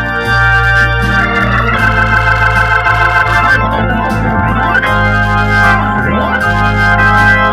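Hammond T500 tonewheel organ playing a slow pop ballad: sustained chords on the upper manual over held bass notes that change about every second or so.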